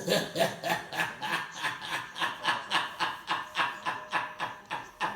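A person laughing hard in a long unbroken run of short bursts, about four a second.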